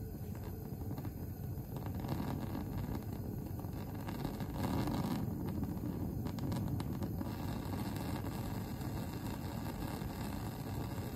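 Laboratory gas burner running on its roaring flame: a steady low rushing sound as a copper sheet is heated in it. A few faint clicks about six to seven seconds in.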